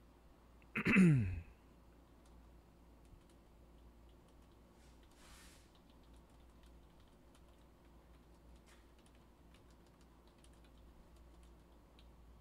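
Faint scattered clicks of a computer keyboard and mouse. About a second in there is one brief, loud sound that drops quickly in pitch, and a short hiss comes about five seconds in.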